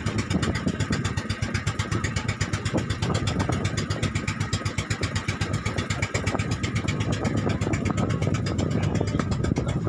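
Engine of a motorized outrigger boat (bangka) running steadily under way, a fast, even chugging.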